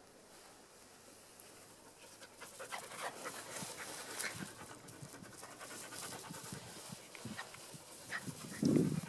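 Small dog panting quickly and audibly after running, starting about two and a half seconds in and going on in quick rhythmic breaths. A short low thump comes near the end and is the loudest moment.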